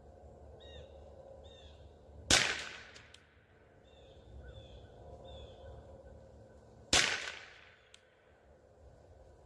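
Rossi RS22 semi-auto .22 LR rifle fired twice, about four and a half seconds apart, each a sharp shot with a short fading tail, shooting CCI Standard standard-velocity rounds. Between the shots a bird calls in short runs of high notes.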